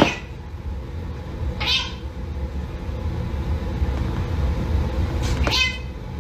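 Domestic cat meowing twice, once about two seconds in and again near the end, over a steady low rumble.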